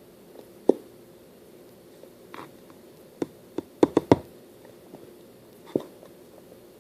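Short sharp knocks and taps of a plastic glue bottle being handled over a bowl while the glue is emptied out: one knock under a second in, a quick run of four about three and a half to four seconds in, and a last one near the end.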